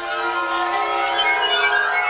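Orchestral background score with sustained string notes, swelling louder.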